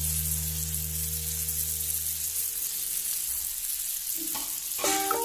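Potatoes, tomatoes and green chillies frying in oil and masala in a wok, with a steady sizzle. A metal spoon stirs and scrapes through them near the end.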